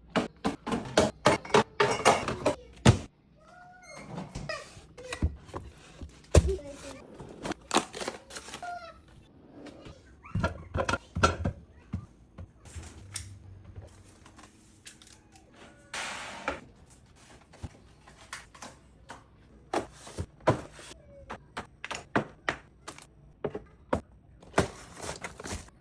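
Groceries being put away in a fridge and kitchen: a long run of irregular knocks and clunks as packages, jars and containers are set down on shelves, with a few stretches of packaging rustle.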